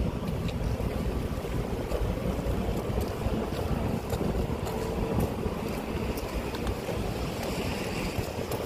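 Wind buffeting the microphone: a steady low rumble, with faint scattered clicks above it.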